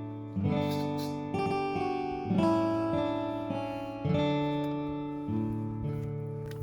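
Background music: acoustic guitar chords strummed slowly, a new chord about every one to two seconds, each left to ring and fade.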